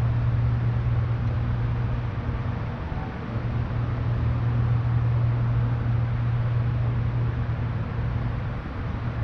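Vintage electric streetcar running slowly around a tight loop of track: a steady low hum under a noisy wash, easing slightly a few seconds in and again near the end.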